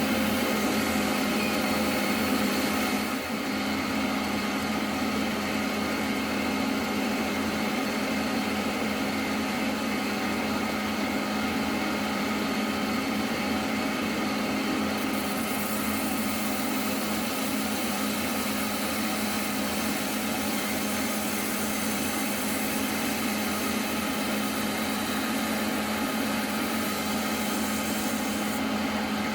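Electric grinder motor running steadily with a constant hum, used for cleanup on a freshly heat-treated knife; the hiss above the hum shifts a few times.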